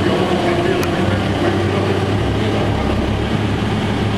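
Dieci Apollo telehandler's diesel engine running steadily while the machine holds and lowers a stone altar slab, with a higher whine during the first second or so.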